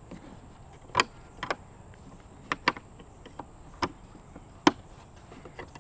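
Scattered sharp clicks and knocks of things being handled, about half a dozen, over a faint steady high-pitched whine.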